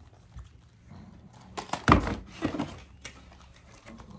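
Small cardboard boxes being handled, with a short clatter of knocks and rustling about halfway through, the loudest a single sharp knock.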